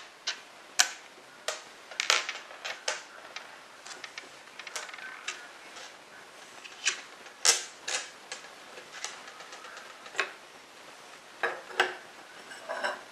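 Small metal parts of a Henry lever-action rifle being handled and set down on a tabletop during disassembly: irregular sharp clicks and taps, a few louder than the rest.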